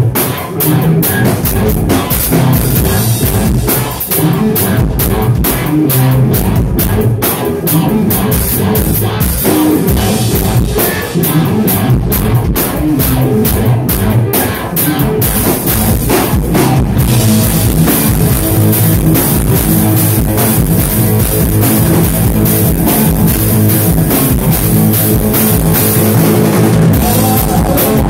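Live rock band playing loudly: two electric guitars, one of them a double-neck, over a driving drum kit. Cymbals ring out from about halfway on.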